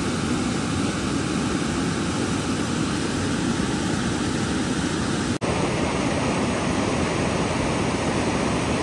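Mountain stream rushing and splashing over boulders: a steady roar of white water, with a very brief dropout a little past halfway.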